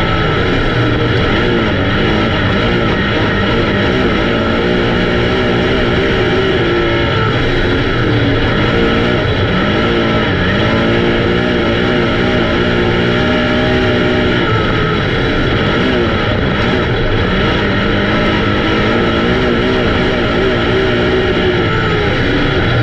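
Several race car engines running hard around a track, their pitch rising and falling again and again as they accelerate and back off.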